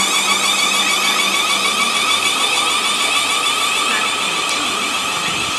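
Class 444 Desiro electric multiple unit moving through the platform, its traction motors giving a steady, high multi-pitched whine that eases slightly near the end.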